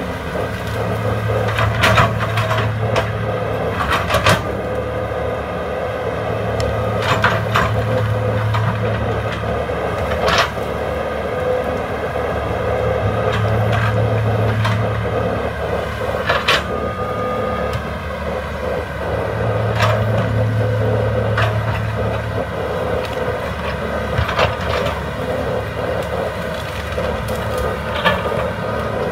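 Hydraulic excavator's diesel engine running steadily under work. Its low rumble swells in a repeating cycle about every six seconds as the machine loads up. Sharp cracks and knocks are scattered through, from material being dug and broken.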